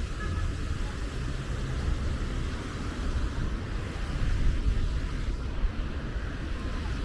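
City street traffic: cars passing on a boulevard as a steady low rumble, swelling briefly about four to five seconds in.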